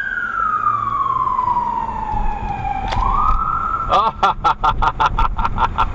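Police car siren in a slow wail, sliding down in pitch and back up, then switching about four seconds in to a fast yelp of about five pulses a second. It is heard from inside a moving car over low road rumble.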